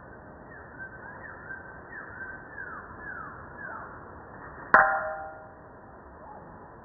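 A 2¼-pound Diamond rounding hammer dropped from 10 inches lands on the face of an old cast-iron Harbor Freight 55 lb anvil once, near the end, giving a single clang that rings briefly. This is a drop test of the anvil's rebound, a measure of how hard its face is.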